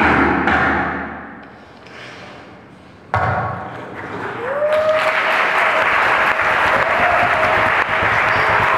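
Two sudden thuds, one at the start and one about three seconds in, then audience applause from about halfway through, with a steady held tone running over it.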